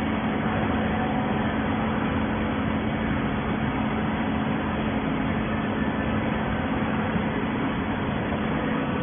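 Horizontal waste-paper baling machinery running: a steady mechanical hum with a constant low drone.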